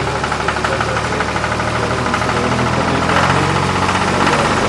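Sound effect of a diesel tractor engine running steadily at idle with a knocking rattle.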